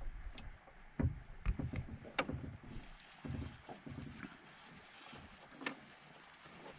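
Scattered sharp knocks and taps on a fishing boat, the loudest about two seconds in. A faint steady high whine comes in about halfway.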